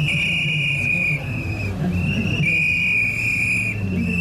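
Long, steady blasts on a whistle, one after another with short breaks, over the low running of a Lamborghini Aventador's V12 as it rolls forward.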